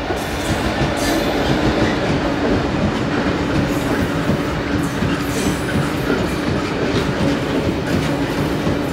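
Class 66 diesel-hauled freight train running past close by: the locomotive goes by at the start, then a long rake of PCA tank wagons rolls past with a dense, steady rumble, wheels clattering over rail joints and a steady hum.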